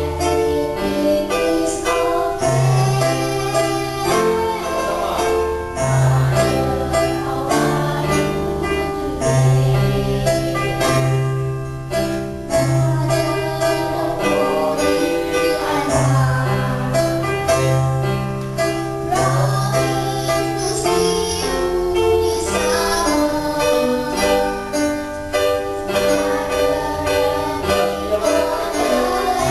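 A group of young girls singing a song together, practising part-singing with a second voice part, over an instrumental accompaniment with a steady bass line.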